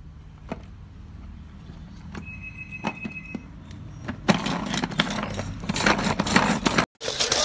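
Food chopper running with its blade spinning in the bowl: a loud, dense rattling clatter that starts about four seconds in and cuts off abruptly near the end. Before it come a few light clicks of the plastic parts being handled.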